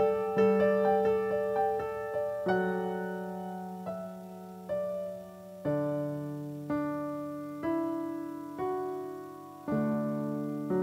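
Piano music: a few quick notes, then slow chords struck about once a second, each left to ring and fade.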